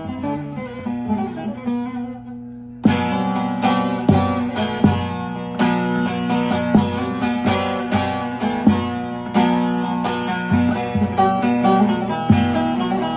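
Short-neck bağlama (saz) with a bowl carved from chestnut, played with a plectrum. Soft picked notes fade out, then about three seconds in a loud strummed stroke opens a busy passage of fast picked and strummed notes.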